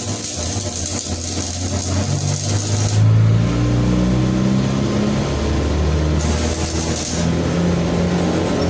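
Stick welding on a steel gate: the arc crackles and hisses for about the first three seconds, stops, then strikes again briefly about six seconds in. A low droning hum runs underneath throughout.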